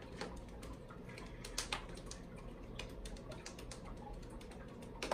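Light, irregular taps and rustles from legs being shaken out on a yoga mat, with a couple of louder taps, one about one and a half seconds in and one at the very end.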